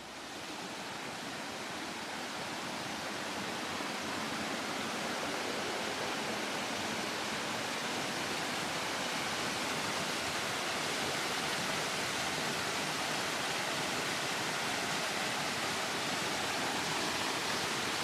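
Steady rush of running water, likely the Tsukinowa waterfall or the stream beside it, swelling over the first few seconds and then holding level.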